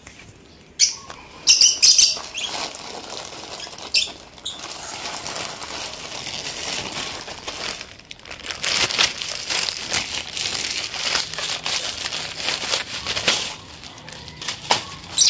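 Plastic courier mailer being torn open and handled, crinkling and rustling, with the loudest crackles around one and two seconds in.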